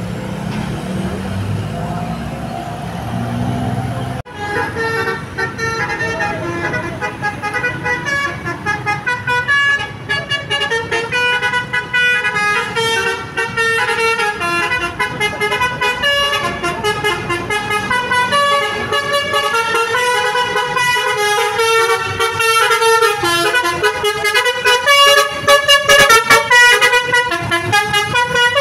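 Basuri V3 telolet multi-tone musical horn playing a fast melody of stepping notes. It starts about four seconds in after a low rumble and grows louder toward the end.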